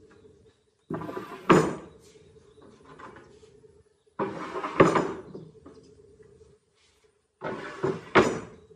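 Long rough-sawn wooden planks set down one after another on a wooden workbench: three clattering wood-on-wood knocks, each with two sharp strikes and a brief hollow ring after it.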